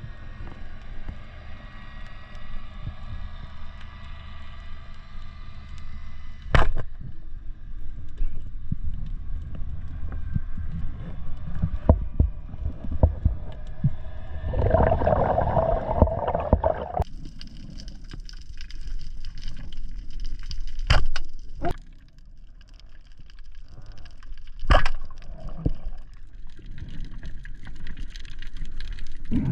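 Underwater sound heard by a spearfisher's camera while swimming over a reef: continuous muffled water movement and gurgling. A few sharp knocks come through, the clearest about a third of the way in, then twice more in the last third.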